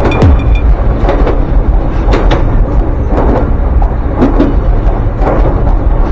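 Ryutetsu Nagareyama Line train running: a steady heavy rumble with the wheels clacking over rail joints about once a second. A ringing level-crossing bell dies away just after the start.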